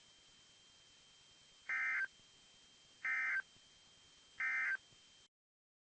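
Emergency Alert System end-of-message (EOM) tones: three short bursts of SAME digital data warble, about 1.4 s apart, marking the end of the alert. The audio then cuts off suddenly.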